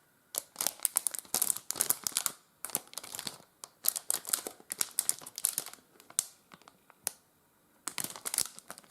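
Plastic packaging crinkling and rustling in quick irregular bursts as it is handled, stopping for about a second and a half near the end before starting again.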